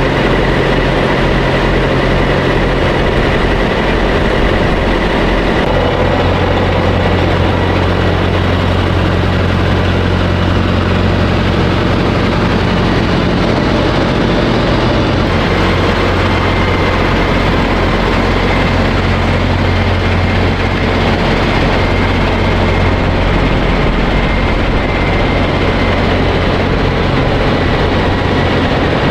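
Steady drone of semi-truck diesel engines and trailer refrigeration units running, with a thin steady high tone above it. The low engine note shifts a few times and grows louder about six seconds in as a truck moves.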